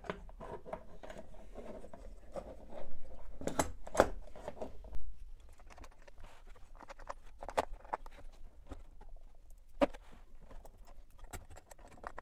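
Handling noise as a welding-machine circuit board is fitted into a plastic toolbox: irregular clicks, taps and knocks of the board and its parts against the plastic case, with a few sharper knocks about three to five seconds in and near ten seconds.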